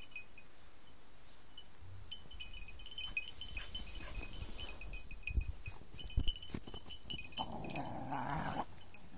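High metallic tinkling of small bells, scattered irregular pings that come and go through most of it, over dull low thumps of movement in snow; a brief louder rustling sound comes near the end.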